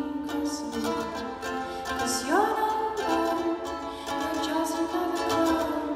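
Ukulele strummed and plucked under a woman's singing voice holding long notes, one of which slides upward about two seconds in.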